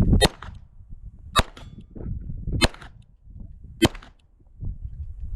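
Four 9mm pistol shots from a Beretta 92, evenly spaced about a second and a quarter apart, fired at steel targets.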